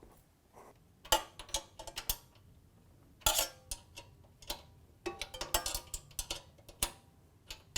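Ratchet spanner clicking in short irregular runs of sharp ticks while the engine mounting bolts are tightened down.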